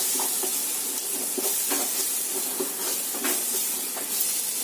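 Onion and ginger-garlic paste with ground spices sizzling in hot oil in a non-stick pan, with a spatula stirring and scraping it a few times; the masala is being fried until cooked.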